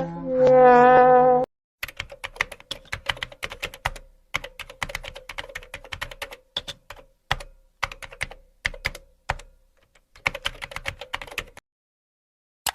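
Fast typing on a computer keyboard: irregular runs of keystroke clicks with short pauses, lasting about ten seconds. It is preceded in the first second and a half by the end of a held, horn-like note.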